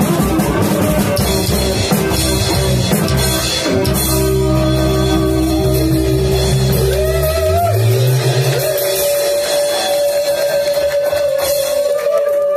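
Live rockabilly band playing: upright bass, electric guitar and drum kit. Long held notes fill the second half, with a rising bass slide about halfway through.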